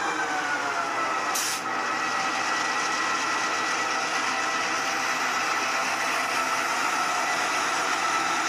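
Bachmann N-scale GP7 model locomotive running on its track, a steady small-motor hum and whine with wheel noise; the whine falls in pitch in the first second, then holds steady. A brief hiss about a second and a half in.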